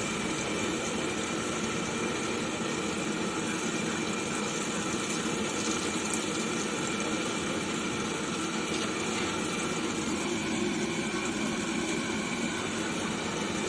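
Samosas deep-frying in a kadai of hot oil over a gas burner: a steady sizzle of the oil mixed with the hiss of the burner's flame.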